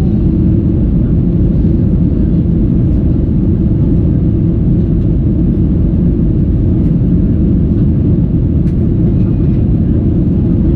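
Steady, loud, low-pitched cabin noise of a Boeing 737-800 during takeoff: its CFM56-7B jet engines at high thrust and the airflow around the fuselage, heard from inside the passenger cabin.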